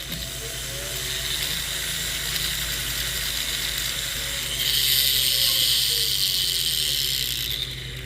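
Rotary tool spinning a silicone polishing wheel against silver, a steady whirring hiss that starts suddenly and grows louder and brighter for a few seconds as the wheel presses against the metal.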